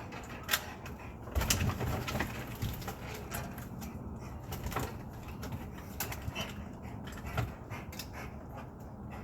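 A dog scratching, knocking and rustling as it struggles to get free, with brief animal vocal sounds among the noise. The knocks and scratches are irregular and loudest about one and a half seconds in.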